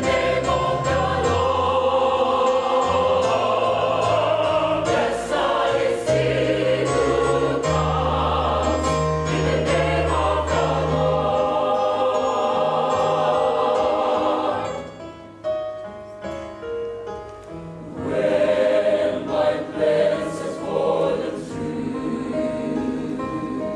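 Mixed choir of men's and women's voices singing in parts. Past the middle the singing drops to a soft passage for a few seconds, then swells back to full voice.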